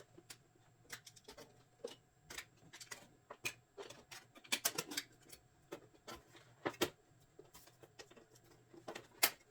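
Scattered light clicks and taps, irregular and close together, from a photo frame and paper prints being handled.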